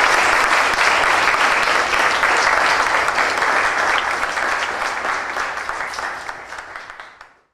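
Audience applauding with many hands clapping. The applause fades over the last couple of seconds, then cuts off abruptly.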